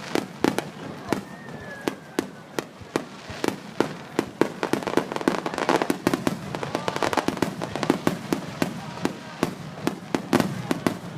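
Fireworks display: a rapid, irregular run of sharp bangs and cracks from shells bursting overhead, thickest in the middle and again near the end, with a brief whistle about two seconds in.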